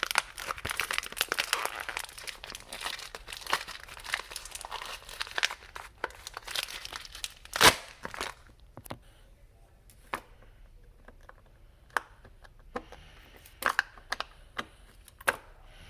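Packaging being crinkled and torn open: dense crinkling for about six seconds, then one loud sharp click and scattered smaller clicks and taps.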